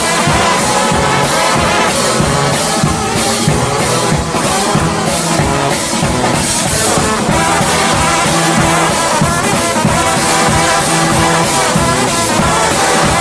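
Brass band playing with drums and cymbals, a steady beat of about two strokes a second under held horn notes.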